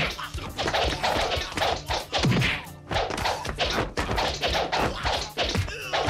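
Dubbed film fight sound effects: a quick run of punch and staff-strike whacks with swishes of swung weapons.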